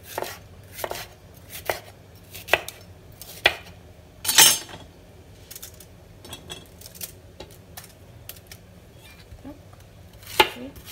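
Chef's knife cutting a bell pepper on a plastic cutting board, knocking the board about once a second. About four seconds in comes one louder, longer clatter, then lighter scattered clicks as the pieces are handled, with a few more knocks near the end.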